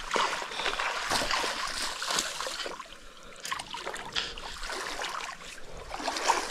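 Shallow water splashing and sloshing as a wire-mesh crab trap is hauled through it by its rope, with wading in the creek; the splashing is heavier for the first two or three seconds, then lighter.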